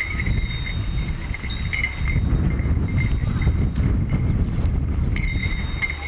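A yoked pair of bullocks pulling a wooden plough: faint bell-like jingling from their harness comes and goes as they walk, over a steady low rumble.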